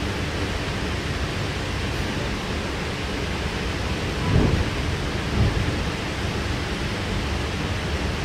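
Running noise inside a K-set double-deck electric train carriage: a steady rumble and hiss, with two louder low thumps about four and five seconds in.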